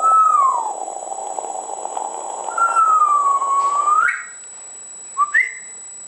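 African grey parrot whistling: a note that falls at the start, a longer note about two and a half seconds in that dips and then rises, and a short two-step note rising to a higher pitch near the end. A steady hiss runs underneath and stops about four seconds in.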